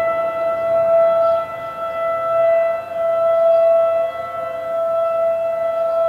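Outdoor civil defense warning siren sounding a steady, unchanging tone during a monthly siren test, its level swelling and fading every second or two.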